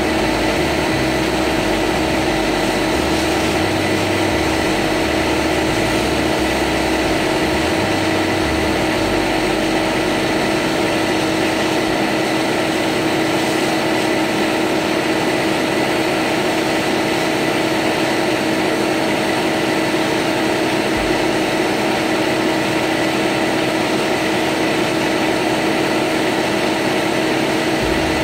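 Sandblast cabinet's blast gun running continuously, a steady hiss of compressed air and abrasive grit striking a metal engine fan, over a steady hum.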